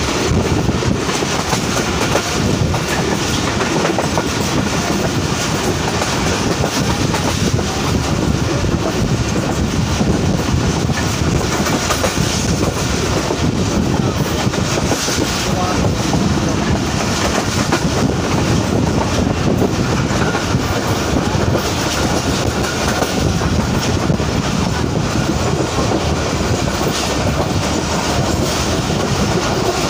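Subak Raftar Express railcar running along the track, heard from on board: a steady, loud rumble of wheels on rails.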